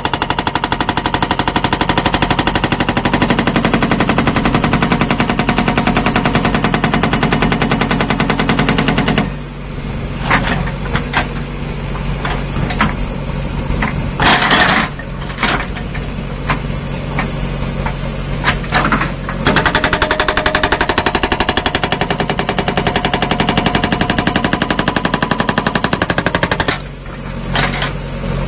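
Indus SAGA70 hydraulic rock breaker on a backhoe loader hammering with rapid, even blows, stopping about nine seconds in. The backhoe's engine runs on through the pause, with a few clinks and a short loud hiss, then the breaker hammers again for about seven seconds and stops near the end.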